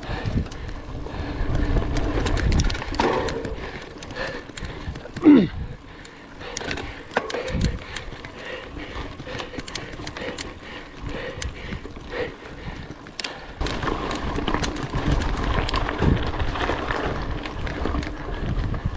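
Mountain bike ridden over a dirt forest singletrack, heard from a camera mounted on the rider or bike: a steady rumble of tyres on dirt with frequent clicks and rattles of the bike over bumps. A short falling squeal about five seconds in is the loudest sound.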